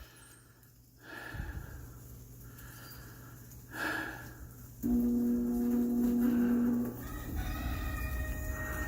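A faulty HVAC air handler blower motor restarting once power is restored. A low rumble starts about a second in, a loud steady hum lasts about two seconds in the middle, and a quieter running sound carries on after it. This is the motor that restarts but soon slows down and stops again.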